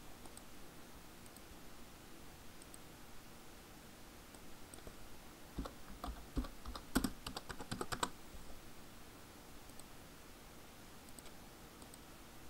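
A short burst of typing on a computer keyboard, about a dozen quick keystrokes over two or three seconds in the middle, with a few faint single clicks before and after.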